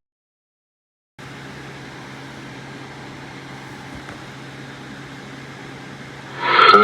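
About a second of dead silence, then a steady hiss with a low hum. Near the end comes a sudden loud burst of noise.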